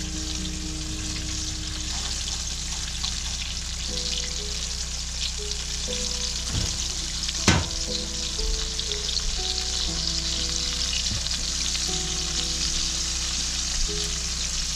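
Battered fish pieces deep-frying in hot oil, around 350°F, in a deep pot: a steady sizzle. About seven and a half seconds in, a single sharp metal clink as the wire spider strainer is set down on the stove.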